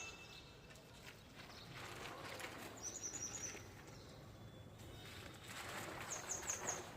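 A small bird gives two quick runs of about four high chirps each, a few seconds apart, over a faint outdoor background of noise.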